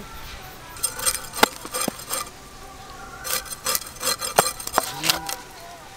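Rasping scrapes and short knocks of ash-coated live koi fish being worked against the curved blade of a bonti, in a run of uneven strokes.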